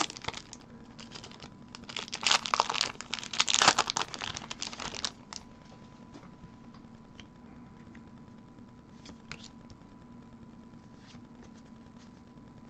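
Foil wrapper of a Pokémon booster pack crinkling and tearing as the pack is opened and the cards are pulled out, loudest from about two to five seconds in. After that come only a few faint taps of cards being laid on the table.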